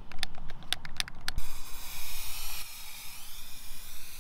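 An aerosol can of black underbody seal: quick, even rattling clicks, about six a second, as the can is shaken, then from about a second in a steady spray hiss as the coating goes onto the tank.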